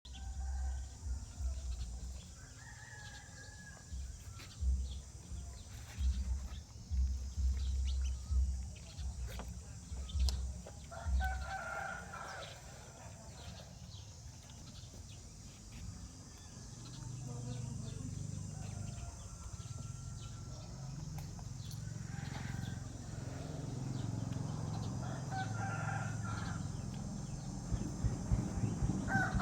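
Bird calls: short, wavering cries recur every few seconds. Under them are low thumps through the first half, giving way to a steady low rumble in the second half.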